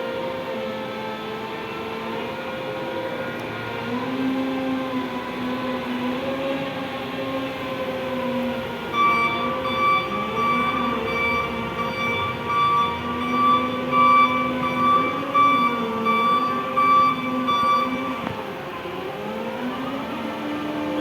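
Combilift forklift running under test after repair, its engine pitch rising and falling as it is worked. From about nine seconds in, a steady high warning beeper sounds for roughly nine seconds over the machine.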